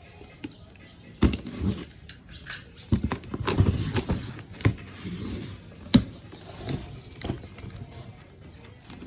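A box being opened and handled: irregular knocks and clicks, with short bursts of rustling in between.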